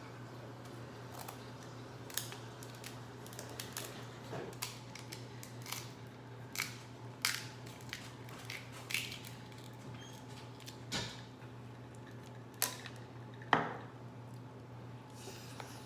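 Crawfish and crab shells being cracked and peeled: irregular sharp cracks and snaps, the loudest one near the end, over a steady low hum.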